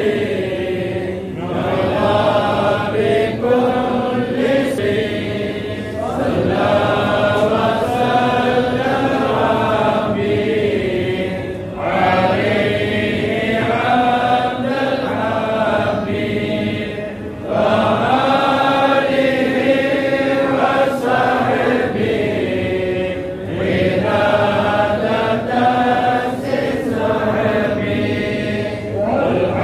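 A congregation of men chanting an Islamic devotional chant together in unison. The chant comes in repeated phrases of about five or six seconds, each with a short break before the next.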